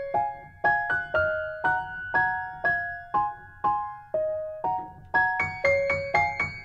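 Background music: a light, gentle piano melody of short struck notes, about two a second, some played as chords.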